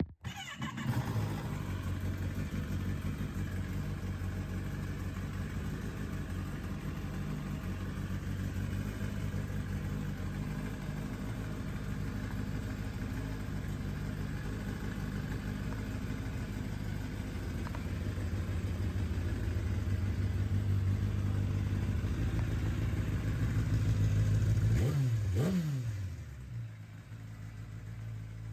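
A 2013 Kawasaki ZX-10R's inline-four engine fires up and idles steadily. About 25 seconds in its note falls and it settles to a quieter idle.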